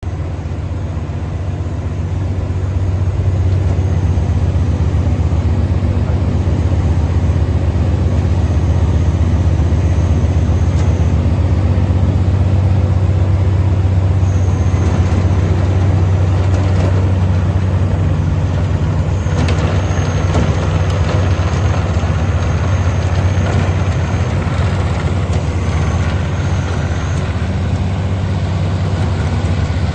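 The 24.8 hp Kubota diesel engine of a Timberwolf 230VTR tracked woodchipper running steadily, getting louder over the first few seconds.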